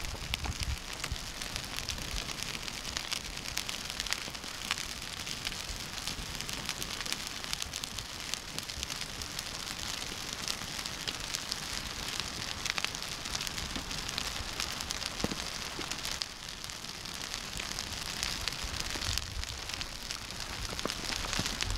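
Log campfire burning, crackling with many small pops over a steady hiss.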